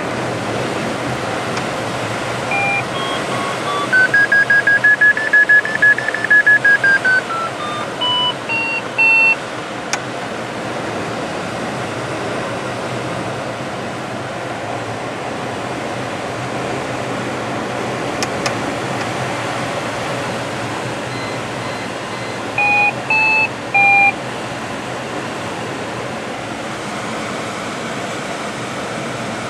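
Steady rush of air around the cockpit of a Pipistrel Sinus motorglider gliding with its engine stopped. A run of electronic beeps steps up and then back down in pitch a few seconds in, and three more short beeps sound about three-quarters of the way through.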